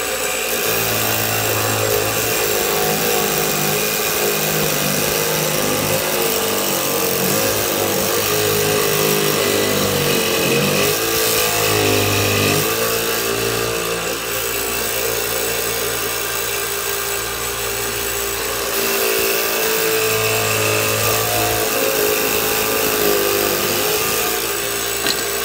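A Jig Saw Jr. toy electric scroll saw runs with a steady buzz as its blade cuts through a wooden paint stirrer stick, the tone shifting now and then as the stick is pushed through.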